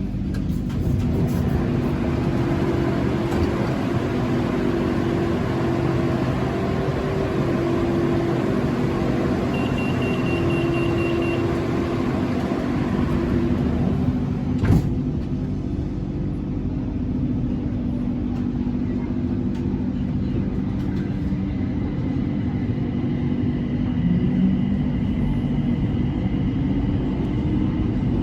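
BTS Skytrain electric train running between stations, heard from inside the car: a steady rumble with several low hums held throughout. There is one sharp click about halfway through.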